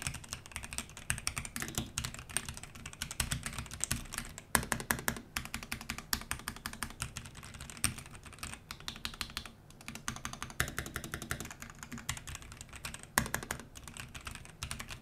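Typing on an ASUS ROG Azoth mechanical keyboard with pre-lubricated linear ROG NX Red switches and PBT keycaps: a fast, continuous run of key clacks with a couple of brief pauses.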